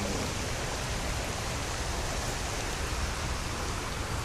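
Steady rush of flowing creek water, an even hiss with no separate strokes.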